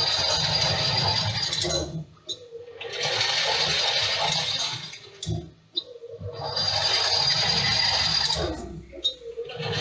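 Metal lathe turning a part, the cutting tool scraping the spinning metal workpiece with a faint high squeal. The cutting comes in three stretches of about two seconds, with short lulls between them as the tool comes off the work.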